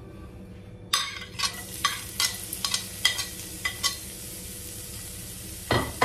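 Chopped onion hitting hot oil in a frying pan, sizzling from about a second in, with a run of sharp clicks and taps from a metal spoon and a heavier knock near the end.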